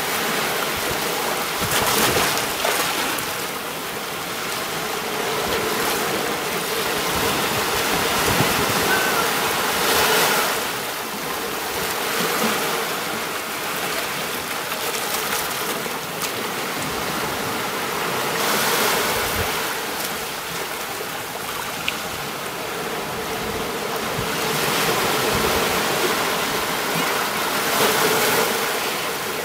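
Sea waves washing onto a beach: a steady hiss of surf that swells every eight or nine seconds as a wave breaks and runs up the shore.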